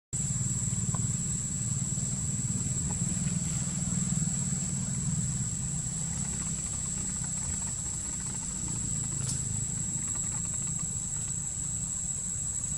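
Steady outdoor ambience: a low, even rumble like a distant idling engine, under a constant high-pitched insect drone.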